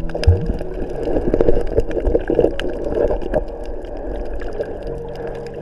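Water sloshing and gurgling, with many small clicks and splashes, under a faint backing tune that shows most clearly near the start and the end.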